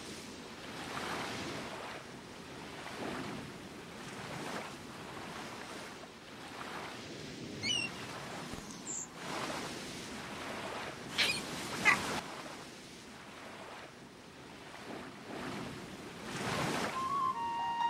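Sea waves washing in and drawing back in slow repeated surges, with wind. A few short high cries are heard around the middle, and a held musical note enters near the end.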